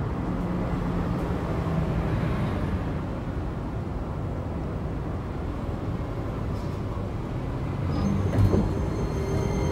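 Hiroden 5100-series low-floor tram (car 5108) running between stops, heard from inside the car: a steady rumble of wheels on rail with a low motor hum. A few thin, high steady tones join near the end.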